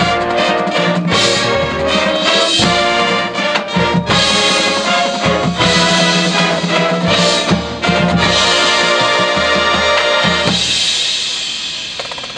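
High school marching band playing, brass and drums with marimbas in the front ensemble. The brass ends about ten and a half seconds in and the sound fades away.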